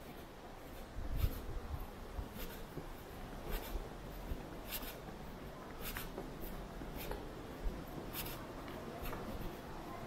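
Footsteps scuffing on a trail at a steady walking pace, roughly one scuff a second, with a brief low rumble on the microphone about a second in.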